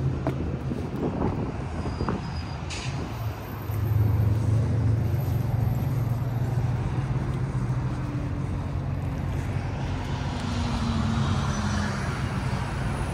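Steady low rumble of an idling truck engine, which gets louder about four seconds in.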